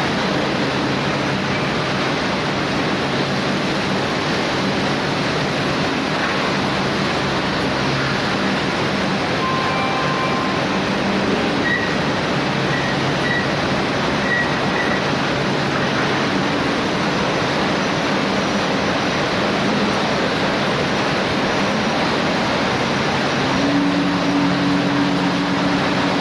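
Rotary veneer peeling lathe in a plywood mill running continuously: a loud, steady mechanical din with a low motor hum. A few faint short beeps sound near the middle.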